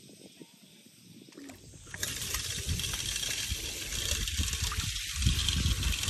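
Water spraying from an outdoor foot-wash faucet onto bare feet and splashing into a stone basin. The spray starts suddenly about two seconds in.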